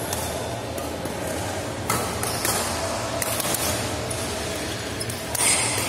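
Badminton rally: rackets striking the shuttlecock, several sharp clicks a second or so apart over a steady low hum.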